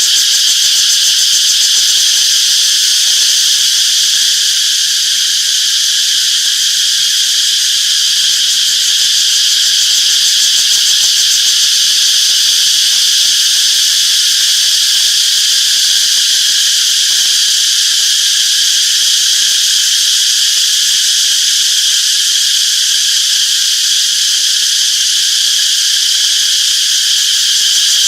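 Cicadas in chorus: a loud, steady, high-pitched buzzing drone that holds without a break.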